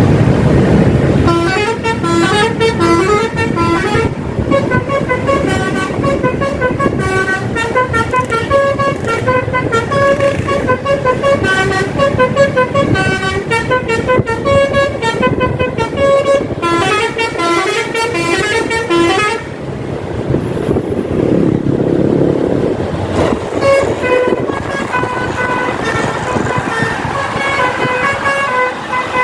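Basuri telolet horn of a Tunggal Jaya tour bus playing a fast melody of short, stepping notes. It stops about twenty seconds in, leaving a few seconds of vehicle noise, then starts playing again.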